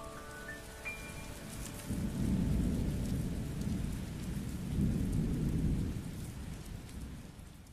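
Rain and thunder effect at the end of a song: steady rain with two low rolls of thunder, about two seconds in and about five seconds in, fading away near the end. A short run of rising musical notes dies out in the first second.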